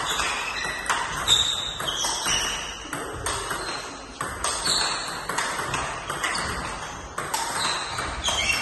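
Table tennis rally: the plastic ball clicking off the rubber paddles and the table in a quick, steady run of strikes, two to three a second, each with a short high ping.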